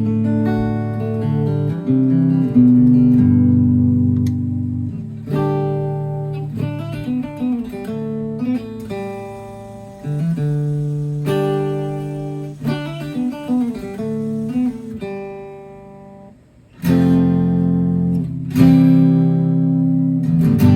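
1960s Silvertone 1446 electric guitar being played: chords struck and left to ring, with quicker single-note lines between them. There is a brief pause near the end before the chords come back in.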